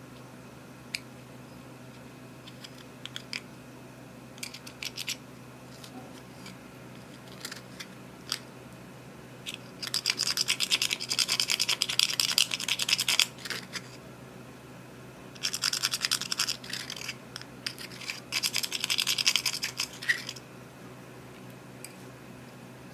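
Close-up scraping and crackling as eyeshadow is worked into clear slime: scattered single clicks, then two spells of fast, dense, scratchy crackling of a few seconds each.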